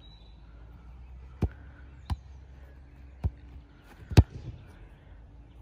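A football thumping three times, then struck hard in a volley about four seconds in, the loudest thump of all.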